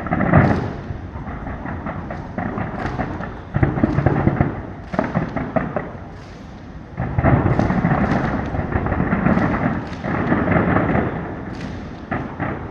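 Aerial fireworks going off: repeated booming bursts with crackle, getting denser and more rapid from about seven seconds in.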